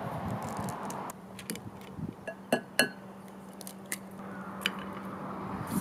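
Eggs being cracked open into a glass mixing bowl: several sharp taps and clinks spread over a few seconds, with a faint steady hum underneath.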